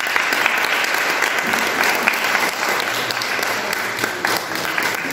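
Audience applauding at the end of a recited poem: dense, steady clapping that eases slightly near the end.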